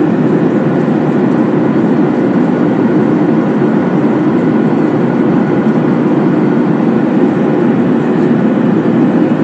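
Steady, loud cabin noise of a Boeing 737 MAX 8 airliner in flight: an even rumble of engine and airflow noise heard inside the cabin, by a window over the wing.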